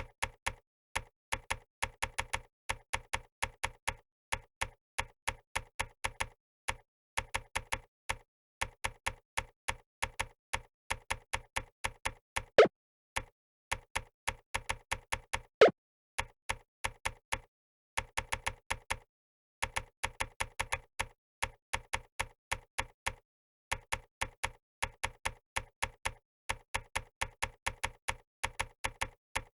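Keybr typing-practice website's keystroke click sounds, one identical click per key typed, in quick runs of several a second with short pauses. Twice, about halfway through, a louder, deeper click stands out from the rest.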